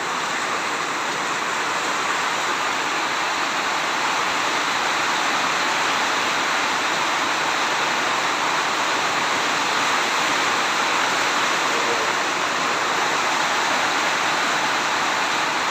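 Heavy tropical rain falling steadily, a dense, even hiss that holds without a break.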